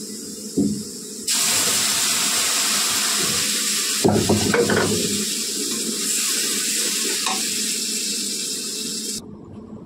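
Lassi (buttermilk) poured into a steel kadai of hot spiced oil and fried potatoes, hissing steadily as it tempers the kadhi. A ladle knocks and stirs about four seconds in, and the hiss cuts off suddenly near the end.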